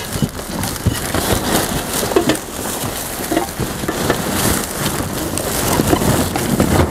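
Cardboard boxes and packaging being rummaged through and pushed aside in a dumpster: steady crunching and rustling with scattered small clatters.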